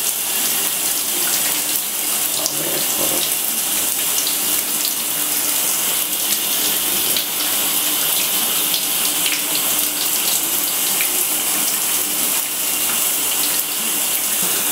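Shower running: a steady spray of water hissing down into a tub, with small droplet spatters throughout.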